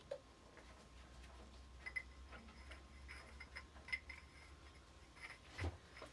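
Faint scattered metallic clicks and light clinks about once a second, with a soft thump near the end: tools and gas-pipe fittings being handled.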